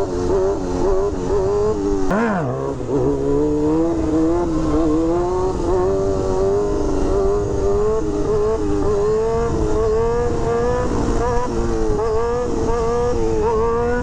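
Honda CBR600 F4i sport bike's inline-four engine held at high revs while it is ridden for wheelies. The pitch wavers slightly, with a quick drop and climb back up about two seconds in.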